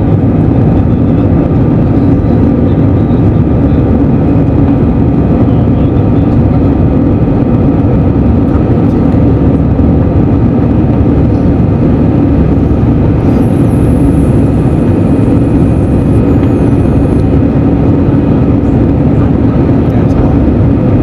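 Airbus A320 cabin noise in the climb after takeoff, heard from a window seat over the wing: the jet engines running at climb power under a steady rush of airflow, with a constant low hum.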